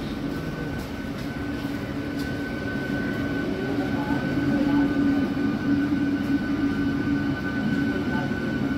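ICF-built electric multiple-unit (MEMU) local train rolling past: wheels rumbling on the rails under a steady electric hum and a thin high whine, growing a little louder about halfway through.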